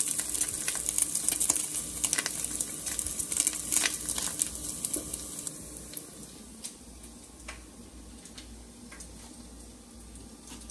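Thick-cut bacon sizzling and crackling in a frying pan, the popping thinning out and fading about halfway through, with a few light clicks near the end.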